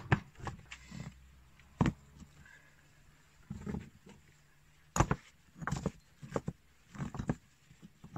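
Rocks knocking and clunking against each other as they are set down one by one into a ring of stones on ash, with some scraping in between. A sharp knock comes right at the start and another just under two seconds in, then a quick run of knocks in the second half.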